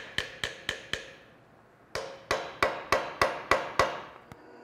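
Small ball-peen hammer tapping on the end of a metal pin set through a wooden clamp bar, peening it over into a mushroom head. Two runs of quick, ringing taps, about four a second, with a pause of about a second between them.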